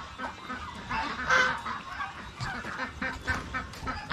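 Domestic waterfowl calling with harsh honks. The loudest honk comes about a second in, followed by a run of short, quick calls near the end.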